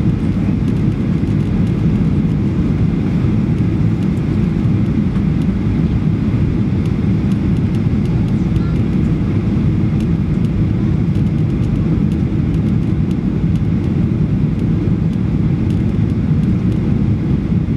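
Steady cabin noise inside a Boeing 737-800 in flight: its CFM56 jet engines and the airflow over the fuselage make an even low rumble.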